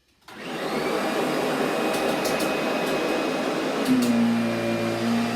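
A vacuum cleaner is switched on about a quarter second in. Its motor spins up quickly to a loud, steady whirring run with a faint high whine. About four seconds in, a steady low hum joins in.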